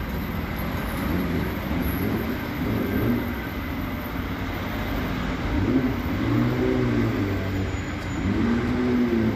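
City street traffic noise on a busy road, with a couple of short pitched sounds that bend in pitch in the second half.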